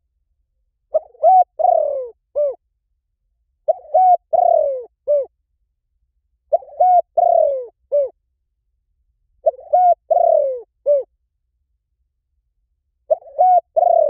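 Spotted dove cooing: the same phrase repeated about every three seconds, five times, each a few short coos with a longer falling coo before a final short one.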